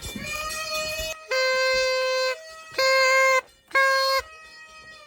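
A party horn blown: a softer toot, then three loud steady blasts of the same pitch, the first about a second long and the other two shorter, each cut off abruptly.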